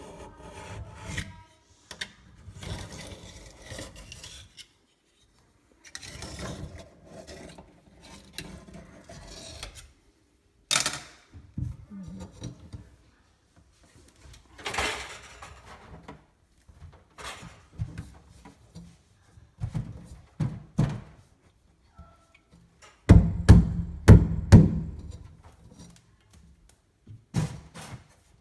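Scattered knocks, rubs and scrapes of an old undermount kitchen sink being unscrewed and worked loose from under the countertop, with a cluster of loud thumps near the end.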